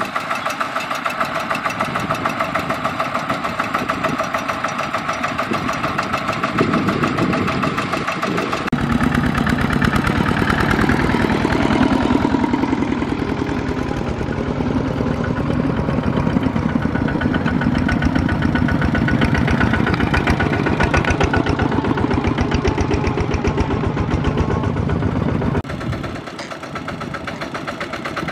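Single-cylinder diesel engines of two-wheel walking tractors (power tillers) running under load, with a rapid, even beat. The sound changes abruptly about a third of the way in and again near the end.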